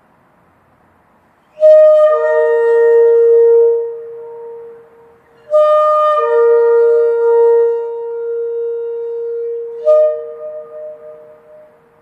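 Shofar (ram's horn) blown three times. Each blast opens on a brief higher note and drops to a lower held tone. The second blast is the longest and the third is short.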